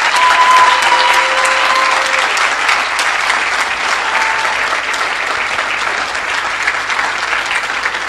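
Audience applauding steadily at the end of a talk, with a single held call rising above the clapping for about the first two seconds and a brief one about four seconds in.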